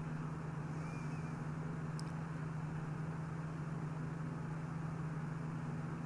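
Steady low mechanical hum, with a faint click about two seconds in.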